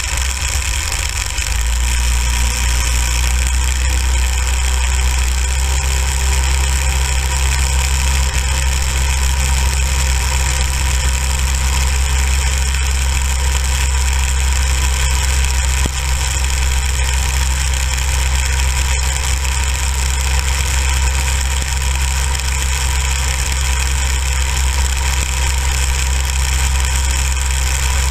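Small go-kart engine running steadily while the kart drives over snow; its pitch climbs over the first few seconds, then holds.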